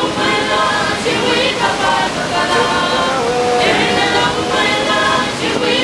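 Music of voices singing together, choir-style, with held notes and sliding phrases.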